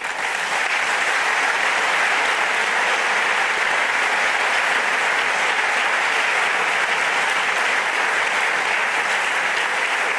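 Audience applauding, breaking out all at once and holding steady.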